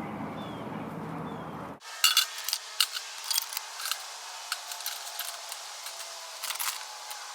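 A steady rushing noise cuts off about two seconds in, followed by irregular metallic clinks and clatters of scrap aluminum parts being handled and loaded into a furnace, loudest just after the cut.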